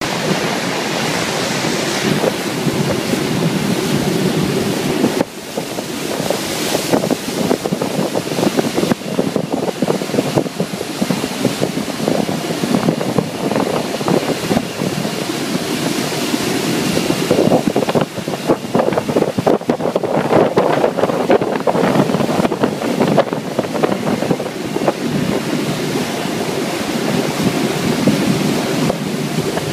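Wind buffeting the microphone over the rush of churning wake water from a moving motorboat: a loud, steady noise that surges and dips, with a brief drop about five seconds in.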